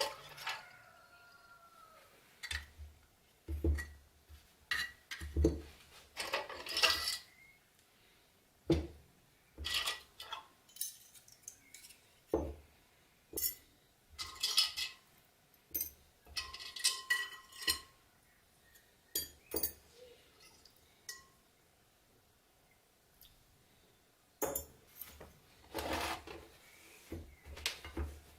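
Small metal parts and tools clinking and knocking against each other and a hard work surface, in irregular separate strikes, some ringing briefly, with a lull about three quarters of the way through.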